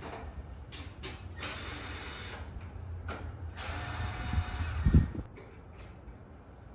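Handling noises: scattered clicks, two stretches of rustling or scraping, and a low thump about five seconds in.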